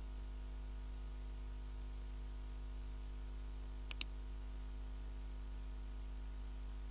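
Steady low electrical hum, with a computer mouse button clicked once about four seconds in: a quick press-and-release pair of ticks.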